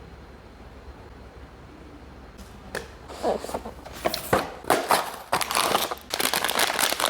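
Blind-box packaging being opened: after about three seconds of quiet, plastic wrapping crinkles and tears in quick, irregular bursts that grow denser near the end.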